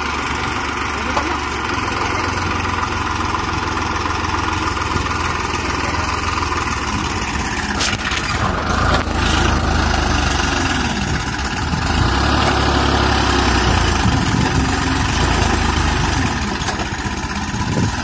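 Massey Ferguson DI diesel tractor engine running under load while its rear scraper blade drags soil. It gets louder for a few seconds past the middle.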